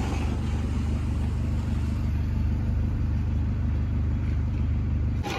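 A car's steady low engine and cabin rumble, heard from inside the car. It cuts off suddenly near the end.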